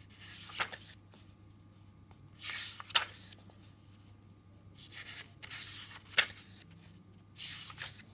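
Pages of a thick book being turned by hand, one at a time: four papery swishes about two to three seconds apart, most ending in a sharp snap.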